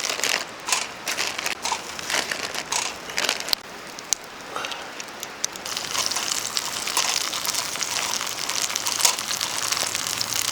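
A few seconds of crinkling and clicking from handling things, then, from about six seconds in, a steady sizzle of food starting to fry in a pan.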